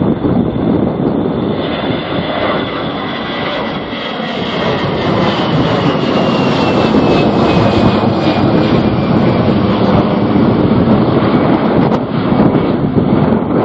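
An airliner's engines passing close by in a loud, steady rush, with a high whine that falls in pitch as the aircraft goes past.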